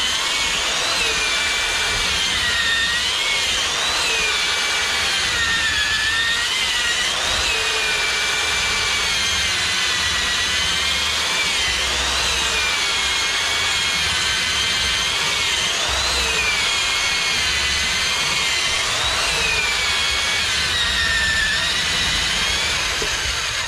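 Corded electric drill boring a long bit into a turned block of wood, its motor whine wavering up and down in pitch as the load on the bit changes. It runs without a break and stops just before the end.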